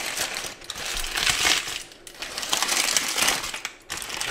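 A papillote of baking paper being pulled open and unfolded by hand, the paper crinkling and crackling in a few spells with short pauses between them.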